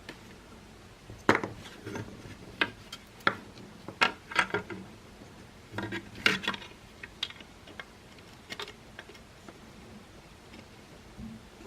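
Hard plastic parts of a Makita CL108FD cordless stick vacuum being handled by hand, giving a string of irregular clicks and knocks. The clicks start about a second in and die away after about nine seconds.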